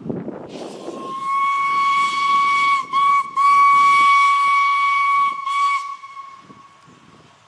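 Steam locomotive whistle blowing one long, steady-pitched blast over a hiss of steam, broken twice by short gaps, then trailing off about six seconds in.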